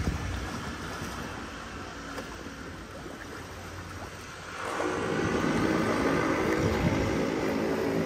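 An engine drone over a wash of wind or water noise. It eases off, then swells sharply louder a little past halfway and holds there.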